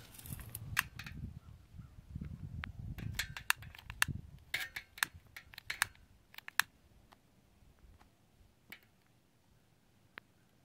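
A long-nosed utility lighter's igniter clicking over and over as the trigger is pulled again and again, failing to catch in the cold, over a low rumble. The clicks come in quick runs and die away about seven seconds in.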